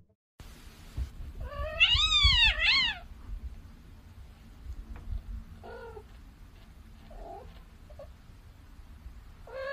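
A kitten meows twice in quick succession, each call rising then falling in pitch, the first longer than the second. A few faint short sounds follow, and another cat's meow begins near the end.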